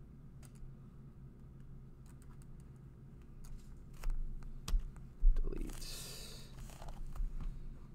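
Computer keyboard and mouse clicks, scattered and irregular, with a few heavier thumps a little past the middle, the loudest about two-thirds through, then a brief hiss. A steady low hum runs underneath.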